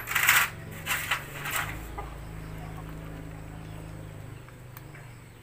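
Metal hand tools and parts clinking and clattering against each other several times in the first two seconds, over a steady low hum.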